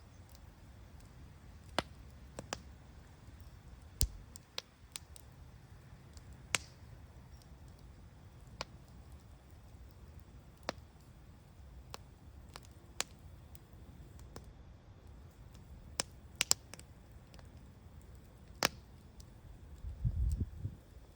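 Wood bonfire crackling: sharp, irregular pops a second or two apart over a low steady rumble, with a brief low swell near the end.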